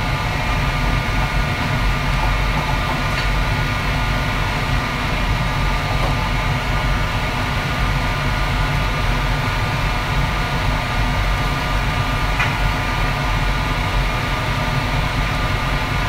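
Steady low roar of a commercial kitchen wok range, its gas wok burner and overhead exhaust hood running, with a few faint steady whining tones over it.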